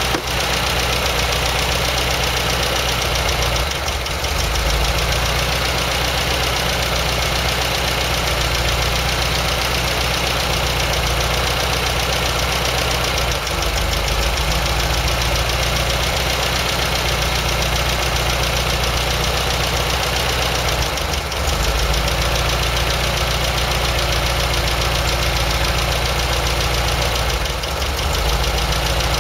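MGB four-cylinder engine on twin SU carburettors idling steadily while the carburettor mixture is adjusted. The idle note shifts slightly a few times as the mixture is changed.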